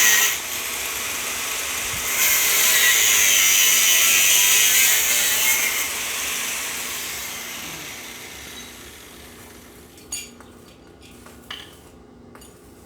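Handheld power grinder working metal with a loud hiss, cutting out briefly near the start, then resuming and winding down slowly over several seconds. A few sharp clicks of metal follow near the end.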